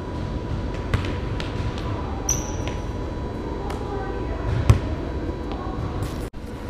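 Basketball bouncing on a hardwood gym floor, a knock every second or so, with one heavier thud a little before five seconds in. A short high squeak comes about two seconds in, over a steady low hum of the hall.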